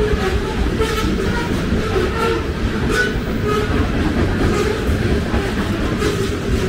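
Covered hopper cars of a freight train rolling past: a steady, loud rumble of steel wheels on rail, with a rhythmic clack about once a second as wheels cross rail joints and brief high squeals from the wheels.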